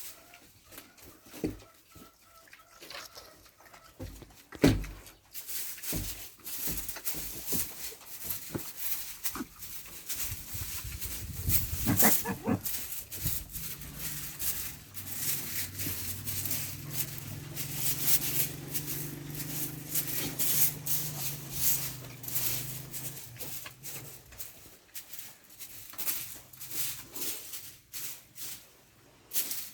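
Repeated scraping and rustling strokes of a broom gathering pig droppings out of sawdust bedding, with farm animals calling. A low drone runs for about ten seconds through the middle.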